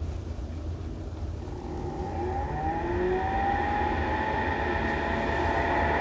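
Sharper Image Sound Soother white-noise machine's internal motor fan spinning up. A low hum with a whir that rises in pitch and grows louder about two seconds in, then holds steady as an even fan noise.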